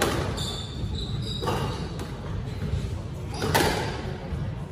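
Squash rally: the ball is struck by rackets and smacks off the court walls, three sharp knocks about a second and a half to two seconds apart.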